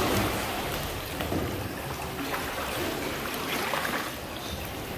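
Water sloshing and trickling, a steady wash with no clear rhythm of strokes.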